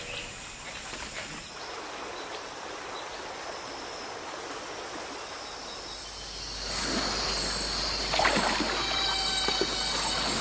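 River water running steadily. About two-thirds of the way through it grows louder, with a few sharp splashes and steady high insect calls in the background.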